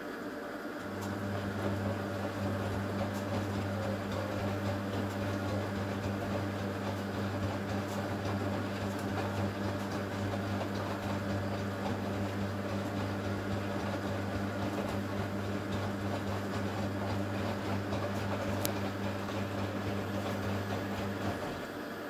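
Candy Superautomatic 98 front-loading washing machine's wash motor humming steadily as it turns the drum of wet towels. It starts about a second in and stops just before the end: one tumbling turn of the wash cycle.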